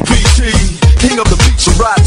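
Hip hop music with deep bass hits that drop in pitch, about three a second, under a melodic vocal line.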